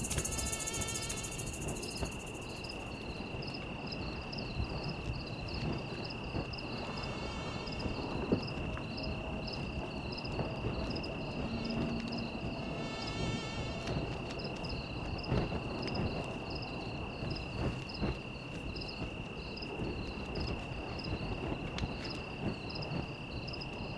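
Night insect chorus: a steady high trill with crickets chirping above it in a regular pulse, a couple of chirps a second.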